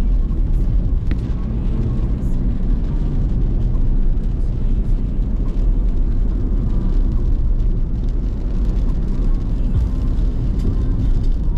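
Steady low rumble of a moving car heard from inside the cabin: engine and tyres on a wet road.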